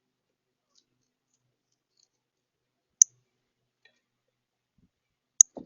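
Two sharp clicks about two and a half seconds apart, the second followed at once by a short, duller knock, against an otherwise silent background.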